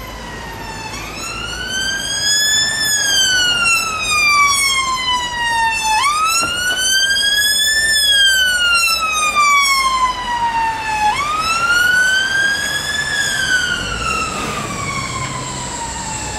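Unmarked police car's siren on a slow wail: the pitch climbs over about two seconds and falls over about three, repeating about three times, growing louder over the first couple of seconds as the car approaches.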